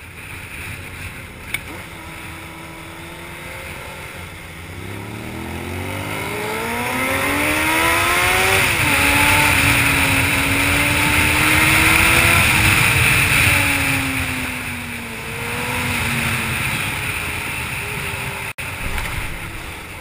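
Honda CBR600F2 inline-four sport-bike engine under way. It accelerates with rising pitch, drops sharply in pitch at an upshift, holds, then falls in pitch as the bike slows, under heavy wind rush on the camera's microphone.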